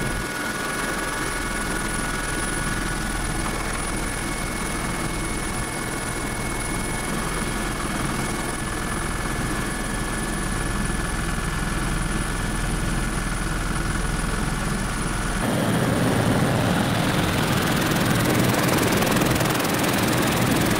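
Helicopter heard from inside the cabin in flight: steady rotor and engine noise with several high whining tones over it. About fifteen seconds in, the sound changes suddenly to a louder, rougher rush and the whining tones drop away.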